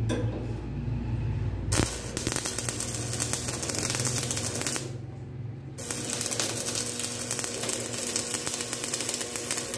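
Electric arc welding crackle: a dense, sputtering sizzle that starts about two seconds in and runs in two stretches, with a short break about five seconds in, over a steady low hum.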